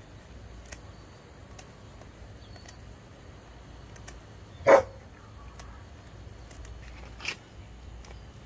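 A dog barks once, loudly, about halfway through, and gives a second, weaker bark about two and a half seconds later. Faint clicks of scissors snipping a hen's wing feathers run underneath.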